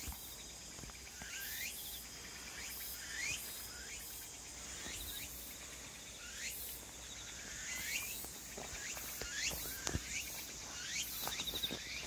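Insects chirring in the grass and trees, a steady high-pitched trill that pulses rhythmically, with a short sweeping call repeated about every second and a half. A few soft knocks of footsteps come near the end.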